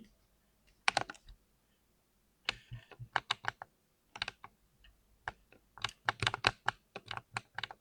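Mechanical keyboard with smooth linear switches being typed on: runs of quick keystrokes with short pauses between them, densest in the last two seconds.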